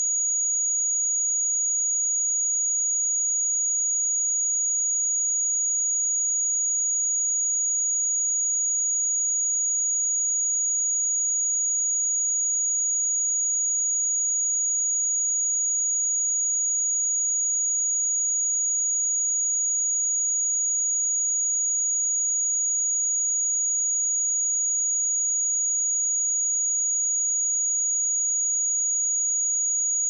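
A pure 6764 Hz sine-wave test tone: a single high-pitched steady whistle with no change in pitch or level.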